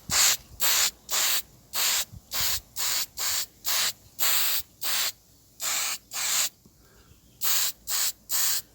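Red paint being sprayed onto a small engine fuel tank in short, quick hisses, about two a second, with a pause of about a second near the end.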